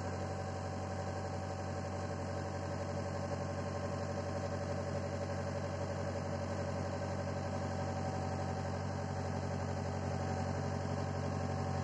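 Hitachi hydraulic excavator's diesel engine running steadily, heard from inside the operator's cab.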